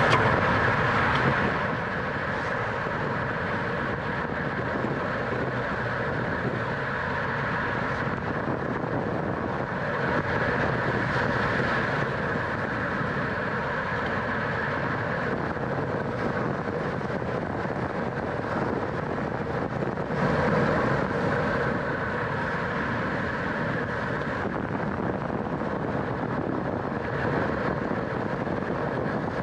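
Steady rush of wind and road noise on a camera mounted on a racing bicycle being ridden at speed, growing a little louder twice.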